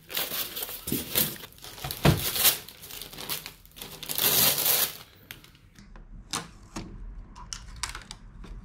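A clear plastic bag crinkling and rustling loudly as it is pulled off a projector, with foam packing caps being removed. After about five seconds it gives way to a few scattered light clicks and taps as the bare projector is handled.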